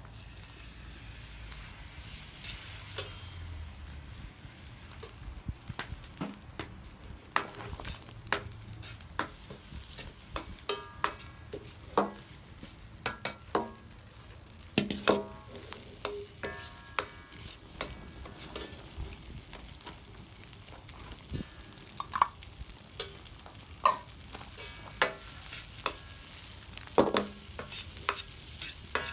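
Fried rice sizzling as it is stir-fried in a metal pan, with frequent irregular clicks and scrapes of a utensil against the pan, some with a brief metallic ring.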